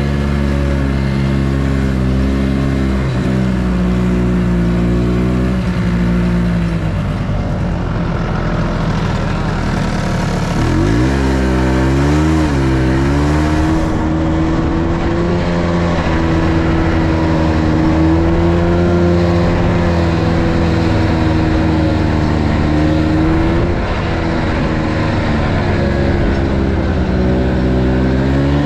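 Snowmobile engine running under way. Its pitch climbs as it speeds up about eleven seconds in, wavers, then holds higher, with a brief dip and rise again near the end.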